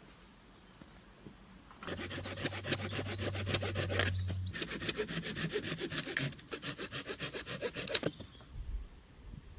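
Hand saw cutting through wood in quick, even strokes, starting about two seconds in, with a brief break about halfway, and stopping about a second before the end.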